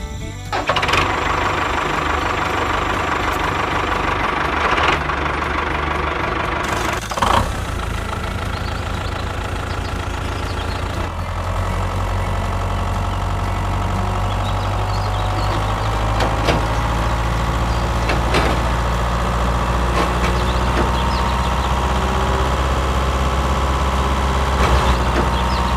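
Miniature toy tractor running as it hauls a log trailer through sand: a steady low engine-like hum with a motor whine that drifts slightly in pitch, and scattered clicks, one sharp click about seven seconds in.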